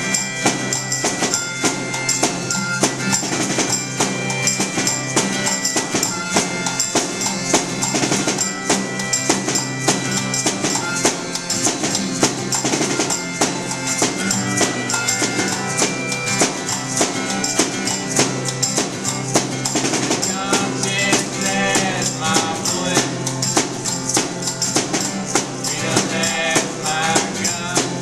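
A small acoustic band playing an instrumental passage: a strummed acoustic guitar, a snare drum hit with sticks in a steady quick beat, hand shakers, and a harmonica holding long notes.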